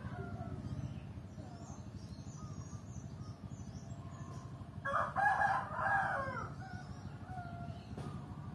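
A rooster crowing once, about five seconds in, for about a second and a half, dropping in pitch at the end. Small birds chirp faintly throughout.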